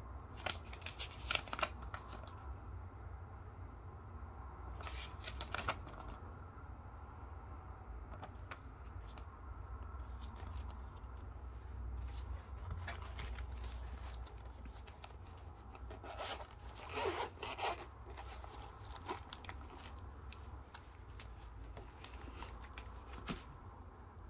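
Intermittent handling noises: a paper instruction booklet rustling as it is folded and put down, then a zippered hard-shell carry case being unzipped and a cable pulled out. A steady low hum runs underneath.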